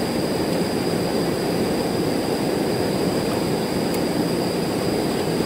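Stream water rushing steadily over rocks, an even, unbroken rushing noise.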